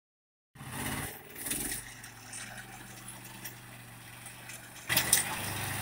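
Engine of a motoblock converted into a small riding tractor, running steadily as it drives a rear-mounted rotary tiller through garden soil. About five seconds in it gets louder, with a few sharp rattles.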